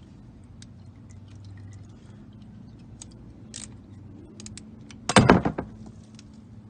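Light scattered clicks of tools and parts being handled under a car, then a loud clatter lasting about half a second, about five seconds in.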